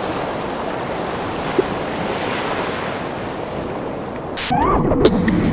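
Steady rush of wind and sea surf. About four and a half seconds in, it cuts to a louder stretch of warbling, wavering sounds.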